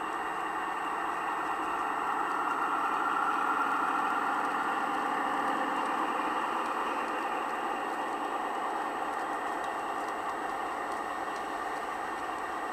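Gauge 1 model diesel locomotive and its passenger coaches rolling past on metal garden-railway track: a steady motor hum and wheel rumble that swells about three to four seconds in as the train goes by, then slowly fades.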